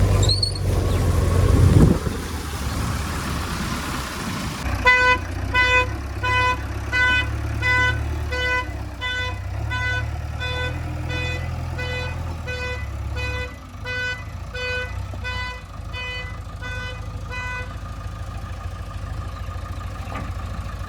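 Heavy diesel engine running, loudest and rising briefly in the first two seconds. Then a reversing alarm beeps at one steady pitch about one and a half times a second for some thirteen seconds, over the engine's low rumble.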